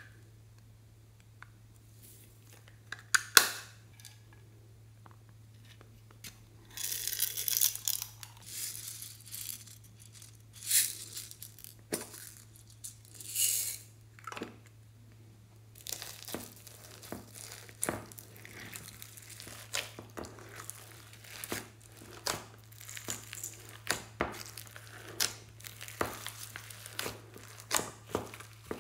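Small plastic cases clicking open and their loose contents rattling and pouring out onto slime, then hands folding and stretching the slime with repeated sticky crackles and pops, about one a second. A low steady hum lies underneath.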